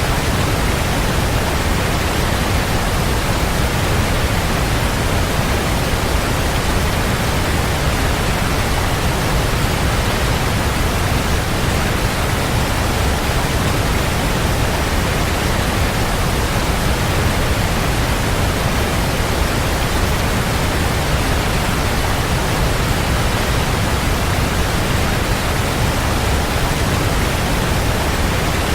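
Waterfall: a steady, unbroken rush of falling water, heaviest in the low rumble.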